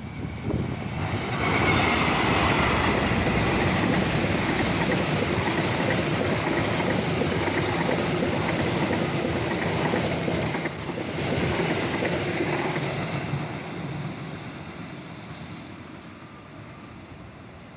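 Argo Cheribon express passenger train passing at speed, wheels running on the rails: it swells quickly about a second in, stays loud for about twelve seconds, then fades away as it recedes.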